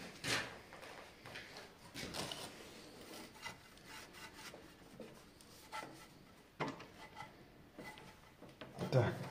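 Cloth rag rubbing and wiping the metal columns and frame of a thickness planer, in short, irregular strokes.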